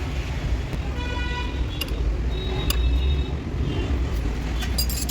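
Busy road traffic with engines rumbling, and a vehicle horn honking briefly about a second in.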